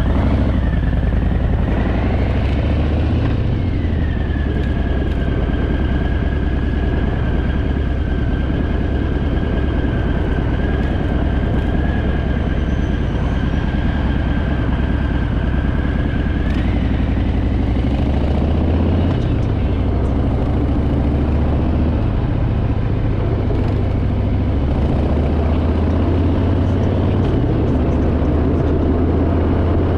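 Harley-Davidson Fat Boy's V-twin engine running steadily under way, with wind and road noise. A steady high whistle runs over it for the first half.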